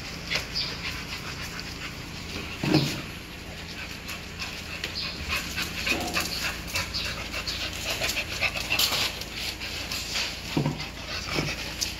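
A pack of American bully puppies panting and scuffling together, with a steady patter of small ticks and scrapes. One dog gives a short, falling cry about three seconds in and again near the end.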